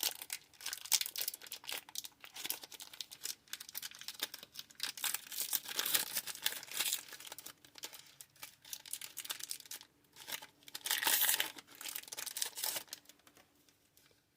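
Foil wrapper of a Pokémon booster pack crinkling and tearing as it is worked open by hand, a stubborn pack that will not tear easily. The crackling comes in stretches, with a brief pause about ten seconds in, and dies away near the end.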